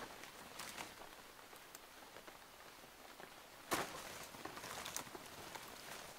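Footsteps and rustling in leaf litter and undergrowth, with a louder crunch about three and a half seconds in followed by a second or so of brushing through leaves.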